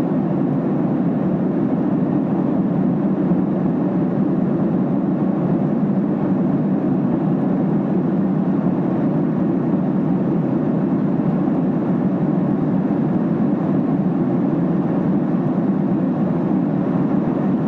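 Steady cabin drone of a Boeing 767 airliner in flight: a constant low rush of engine and airflow noise, even in level throughout.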